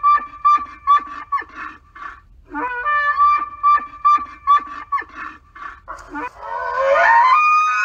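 Bull elk bugling: a high whistled note held steady, broken by a rapid run of grunting chuckles, twice over. Near the end a new bugle starts low and glides up into a high whistle.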